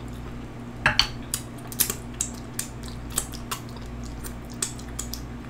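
Cutlery clicking and tapping against a plate while eating: about a dozen short, sharp clicks spread out, the loudest about a second in, over a faint steady hum.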